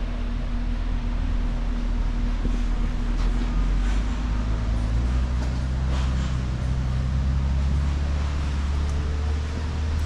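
The 2021 Dodge Ram 1500's 5.7L Hemi V8 idling with a steady low hum that changes about four seconds in.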